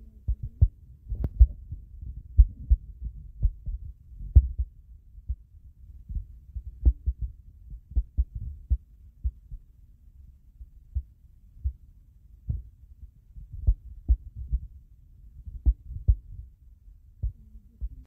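Irregular dull low thumps, about one or two a second with uneven spacing, over a faint low hum.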